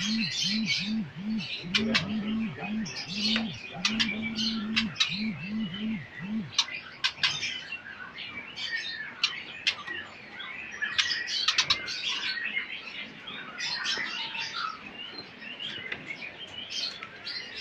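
Many caged songbirds chirping and calling over one another in a dense chorus. A low repeated cooing, about two to three calls a second, runs underneath for the first six seconds or so, then stops.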